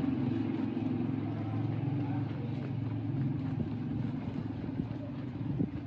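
Steady low hum of a running motor, with a few pitched lines, slowly fading. A few short knocks near the end.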